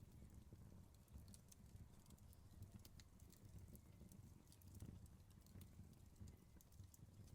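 Faint wood fire crackling: scattered sharp snaps and pops over a low, steady rumble.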